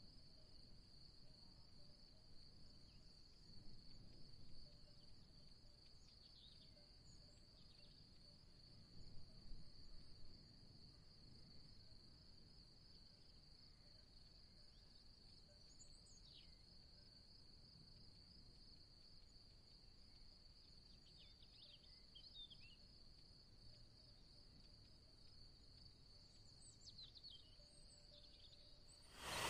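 Faint, steady high-pitched insect trill that holds one pitch without a break, with a few short high chirps now and then.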